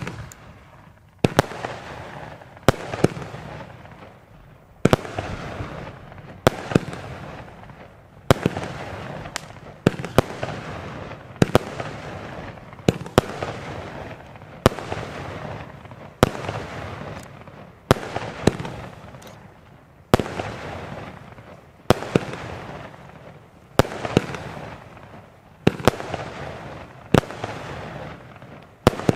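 Vulcan 'Speed of Sound' consumer firework cake firing shot after shot, a sharp bang every second and a half to two seconds. Each bang trails off in a crackling hiss from the bursting stars. The first shot comes right at the start, out of near quiet.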